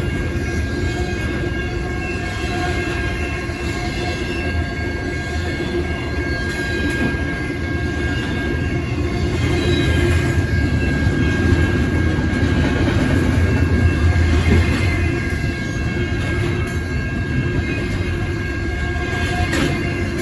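BNSF intermodal freight train rolling past: a steady rumble and clatter of wheels on rail, with a thin steady high tone over it.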